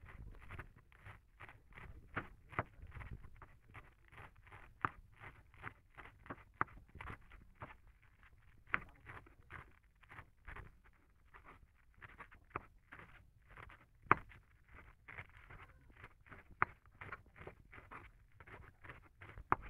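Large kitchen knife rapidly chopping a bunch of mustard-green (lai shak) leaves on a plastic cutting board: a steady run of knife strokes, about four a second, some landing harder than others.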